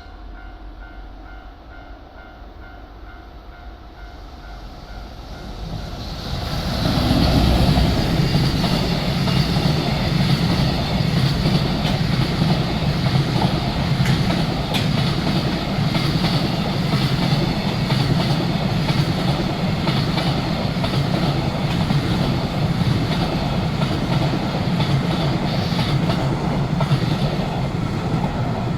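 A level-crossing warning bell rings in a quick repeating beat. From about six seconds in, a freight train hauled by an EF210 electric locomotive passes close by, its wheels clattering over the rail joints for the rest of the time.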